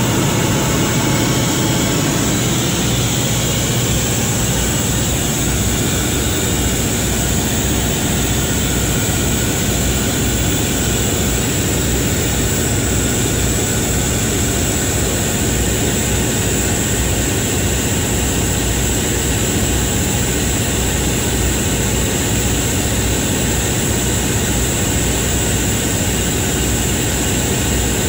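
Caterpillar XQ1475 generator set running steadily under full load, about 1480 kW at 100%, with a steady high whine over the engine's rumble.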